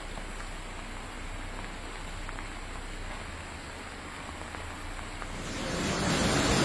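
Steady rushing noise of floodwater flowing through a flooded street. About five and a half seconds in it gives way to a much louder, fuller rushing of a fast, swollen flood torrent.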